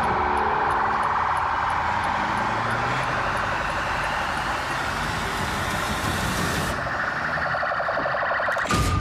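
Police vehicle siren wailing with a fast, continuous warble over a low vehicle rumble.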